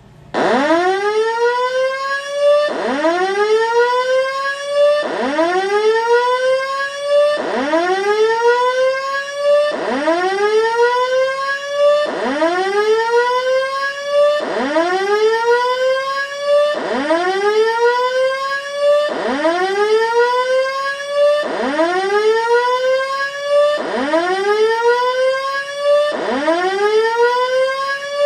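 Simplex voice-evacuation fire alarm system sounding its whoop evacuation tone over the building speakers: a loud rising tone that sweeps up, levels off briefly and restarts about every two and a quarter seconds, calling for the building to be evacuated.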